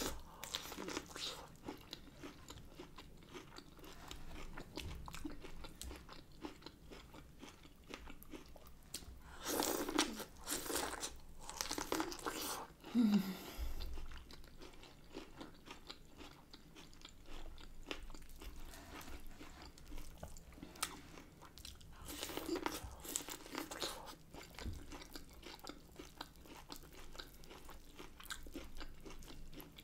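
Close-up eating sounds of someone biting and chewing buttered corn on the cob: many small wet clicks and crunches, with louder bursts of bites about ten seconds in and again a little past twenty seconds. A brief murmured hum comes about thirteen seconds in.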